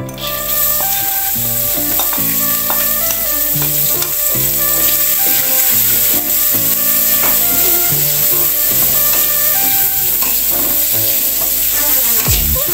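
Sliced torch ginger flowers (kecombrang) sizzling in hot oil in a pan as they are sautéed. The sizzle sets in suddenly at the start, then holds steady with occasional small clicks.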